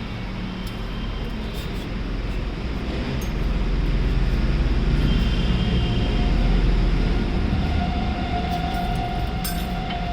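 Low, steady mechanical rumble that swells about halfway through and eases off again, with a faint steady whine joining it in the second half and a few light clicks near the end.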